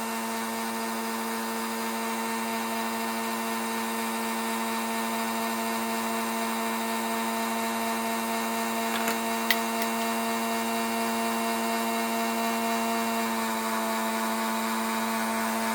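Harbor Freight mini chop saw running with a steady whine, with a couple of brief clicks about nine seconds in.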